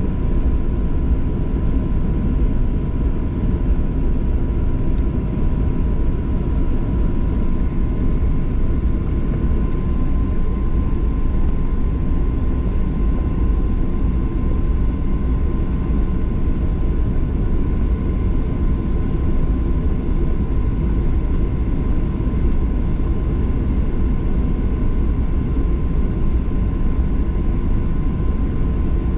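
Steady cabin noise of a Boeing 737-800's CFM56-7B turbofan engines: a constant low rumble with a thin, steady whine above it, unchanging throughout.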